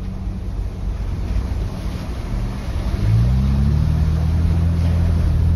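Four-wheel-drive vehicle's engine heard from inside the cabin, running in a low steady drone while crawling along a rough track; about three seconds in the revs climb and the engine holds at a higher, louder pitch as it pulls.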